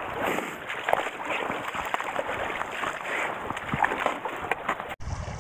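Shallow stream water running, with splashing and sloshing as a hand net is moved through the water and lifted out, plus scattered small knocks. The sound breaks off sharply near the end.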